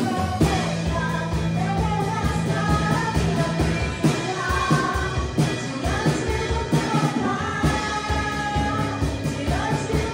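Live worship band playing: women singing a Portuguese worship song over a drum kit keeping a steady beat and sustained low notes from the band.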